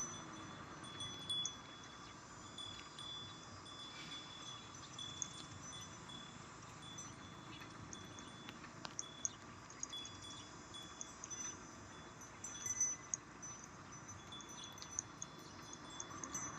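Small metal bells tinkling on and off, with brief high ringing tones and scattered clinks over a faint background hiss.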